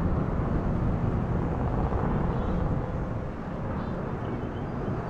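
Distant, steady low rumble of an Airbus A340-313 on final approach to land, from its four CFM56 jet engines.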